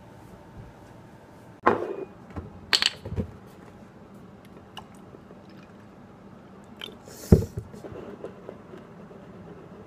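A glass tumbler and a drink carton handled and set down on a kitchen countertop. There is a loud knock just under two seconds in, a sharp glassy clink about a second later with a softer knock, and another hard knock about seven seconds in, followed by light handling noises.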